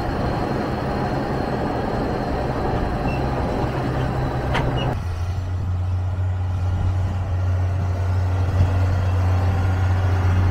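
Engine of an off-road 4x4 truck running steadily while driving; about halfway through, its low drone drops in pitch and grows stronger. A single sharp click sounds just before the change.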